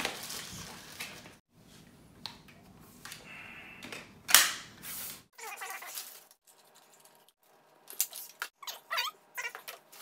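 Crinkling of plastic wrap and cardboard packaging as the parts of a new Dyson cordless vacuum are unpacked, with one loud rustle about four seconds in. A few short squeaky sounds come near the end.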